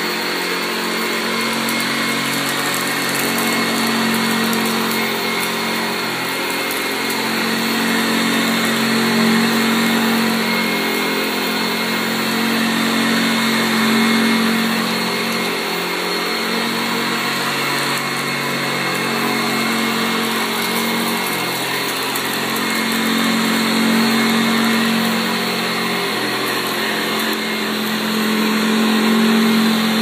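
Vintage 1979 Hoover U4082 upright vacuum cleaner running steadily on carpet, with a constant motor hum. Its loudness swells and eases every few seconds as it is pushed back and forth.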